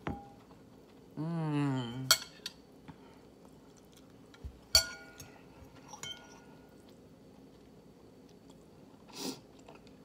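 Metal fork clinking against a ceramic bowl: a sharp strike about two seconds in, another near five seconds and a lighter one just after, each with a brief ring from the bowl. A short wavering hummed voice sound comes just before the first clink, and a brief breathy sound near the end.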